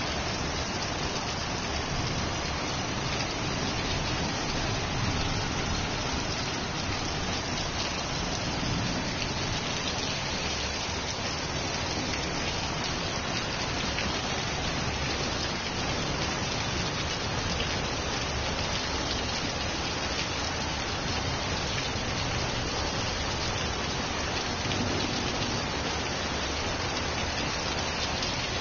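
Heavy rain pouring steadily onto a puddled yard and corrugated-iron roofs, an even hiss that neither builds nor fades.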